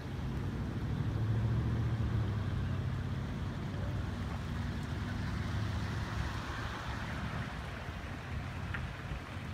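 An engine running at a steady low hum, loudest in the first couple of seconds, over a steady hiss of water or rain.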